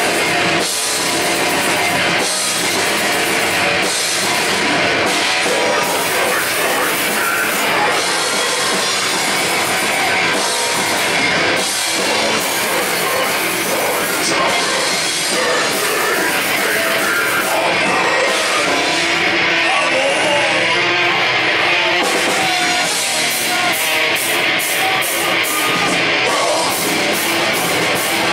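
Heavy metal band playing live, loud and dense, with electric guitars and a drum kit; a run of evenly spaced drum hits near the end.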